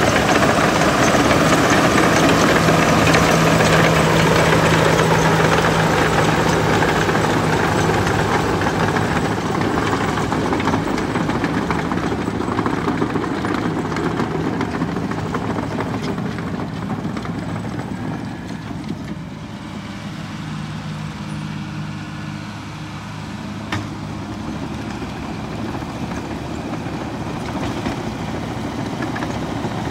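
Caterpillar D5M crawler dozer's diesel engine running steadily, louder for the first several seconds and then settling to a lower, steady level.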